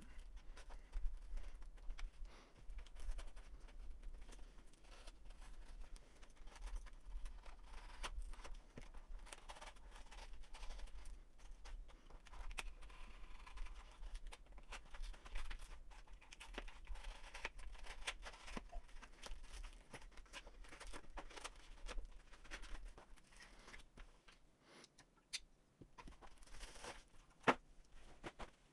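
A cardboard shipping box being cut and opened by hand: a blade scraping through packing tape, with cardboard and packing material tearing and crinkling and scattered small clicks and knocks.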